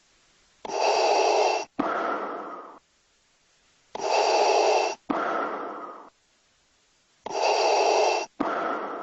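Darth Vader's respirator breathing sound effect, three full breaths: each a steady mechanical inhale of about a second, then an exhale that fades away, with a pause of about a second before the next breath.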